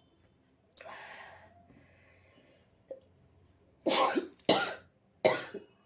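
A person with a head cold lets out three quick, forceful bursts of breath in a row, after a breathy intake of air about a second in.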